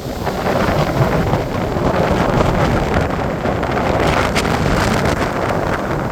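Strong wind blowing hard across the microphone, buffeting it in uneven gusts; the wind builds during the first second and then stays loud.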